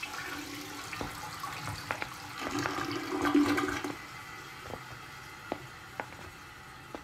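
Water rushing and running, loudest between about two and four seconds in, then easing to a quieter hiss with a few light clicks near the end.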